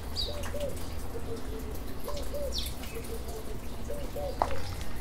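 A dove cooing, the same short phrase repeated about every two seconds, with a few brief high chirps from another bird and a low steady hum underneath.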